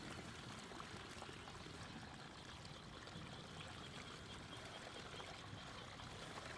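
Faint, steady flow of water running through a field.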